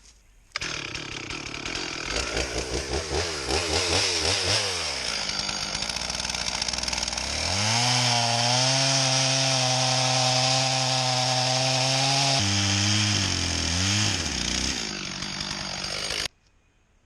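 Stihl two-stroke chainsaw cutting hickory: the engine revs up and down several times, then holds a steady high pitch at full throttle through the cut before dropping back and wavering. The sound starts and stops abruptly.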